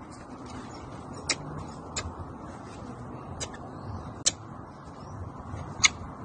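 Sharp, irregularly spaced clicks, about five of them, the last the loudest, over a steady low background hiss.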